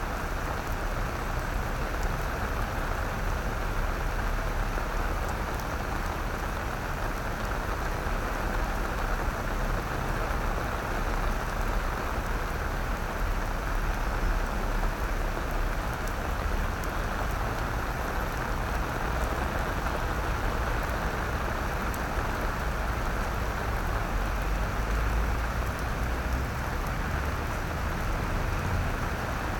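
Steady rain falling on wet paving, an even hiss with a low rumble underneath.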